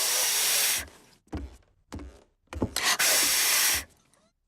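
Two long breathy blows of air through pursed lips with no whistle tone, each about a second long: a cartoon pig trying and failing to whistle.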